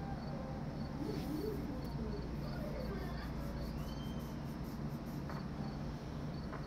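Crickets chirping at a steady pace, about three high chirps a second, over a low steady hum.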